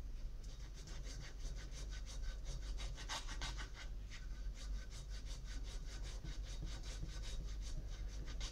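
Small metal tool scraping clean the soldered joint between a copper tube and an aluminium refrigerator evaporator tube, in quick repeated strokes about five a second. The joint is being cleaned so that fresh solder will take.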